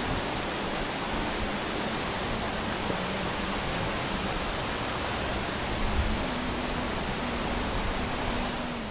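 Multnomah Falls, a tall waterfall, giving off a steady, even rush of falling water.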